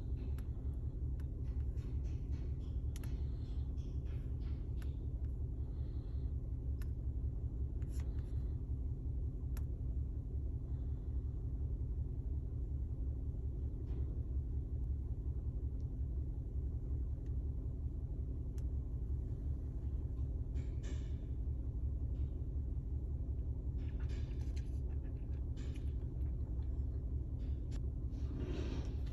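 Toyota Camry hybrid's 2.5-litre four-cylinder engine idling with a steady low rumble, the car being one that shows a misfire and vibration. Scattered light clicks and taps sound over it.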